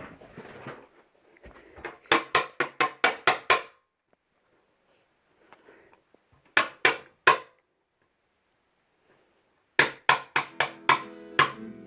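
A series of sharp knocks in three quick runs: about eight, then three, then about seven, with pauses between.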